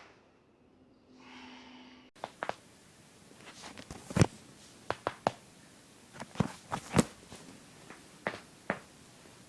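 A soft breathy hiss, then a run of about a dozen sharp cracks and pops at irregular intervals from joints being cracked. The loudest crack comes about four seconds in and another strong one about seven seconds in.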